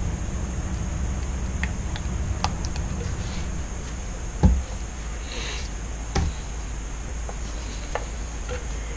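A few light knocks and clicks of paint bottles and cups being handled and set down on a work surface, the loudest about four and a half seconds in, over a steady low hum.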